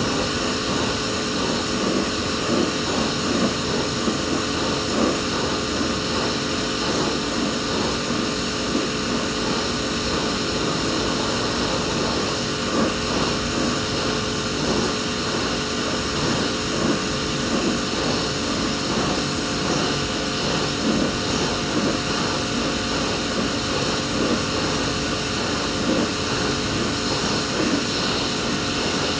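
Electric pressure washer running steadily: the pump motor hums under the hiss of the water jet from the lance.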